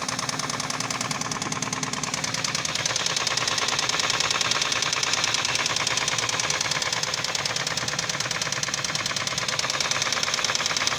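1997 Nissan Maxima's 3.0-litre V6 idling with a loud, rapid knock from inside the engine, a little louder about three seconds in. The knock came on after the engine overheated, and the owner suspects spun bearing shells, a bent crankshaft or a damaged head.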